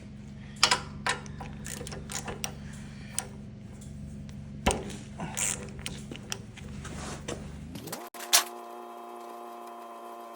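Ratchet wrench clicking in irregular bursts while the spark plug is worked out of the air compressor's engine, over a steady low hum. About eight seconds in, the sound cuts suddenly to a steady pitched tone.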